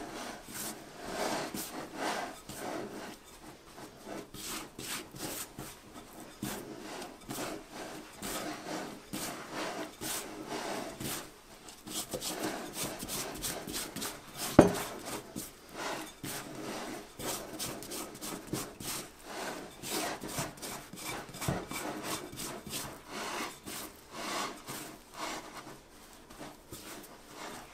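Hands kneading a soft flour-and-water dough in a glass bowl: repeated rubbing, pressing strokes at an uneven pace, with one sharp knock about halfway through.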